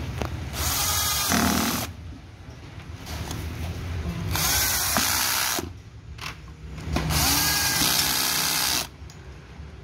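Cordless drill-driver running in three bursts of one to two seconds each, driving screws into the plastic housing of a Bosch GSA 1300 PCE reciprocating saw as it is put back together.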